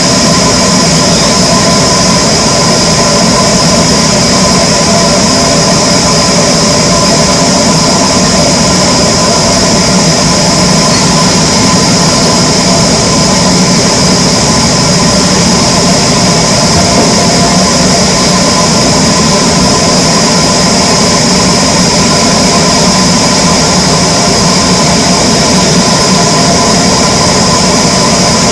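Wood-cutting power saw machine running, a constant loud mechanical hum with a steady high whine that stays unchanged throughout.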